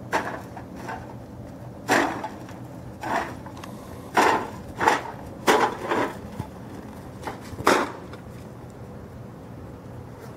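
Plastic bag on a rope rustling and crackling in short, irregular bursts as it is dragged over the dirt.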